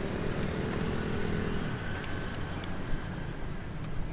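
Street traffic: motor vehicle engines running past, with one engine close by that drops away a little before halfway through.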